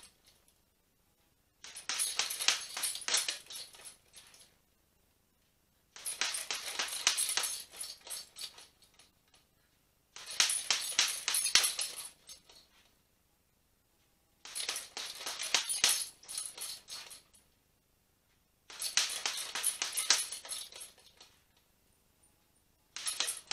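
Gloved punches landing on a hanging heavy bag in six-punch combinations, with the bag's suspension chain jingling as it swings. The bursts last about two seconds each and come about every four seconds, six times, with near silence between them.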